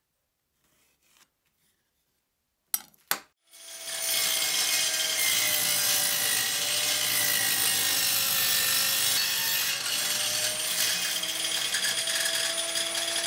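Two sharp knocks about three seconds in, then a table saw runs and cuts into a wooden block: a loud steady whine with a hiss of sawing, its pitch sagging slightly midway as the blade takes the wood.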